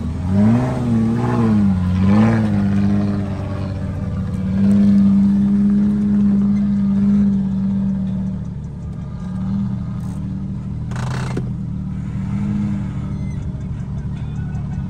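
Jeep Wrangler Rubicon's engine revving up and down as it climbs a steep, bumpy off-road slope, then holding steady revs for a few seconds. A short burst of hiss comes about eleven seconds in.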